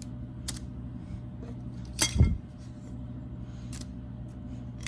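Trading card packs handled and set down on a table: a few light clicks and one louder tap followed by a thump about two seconds in, over a steady low hum.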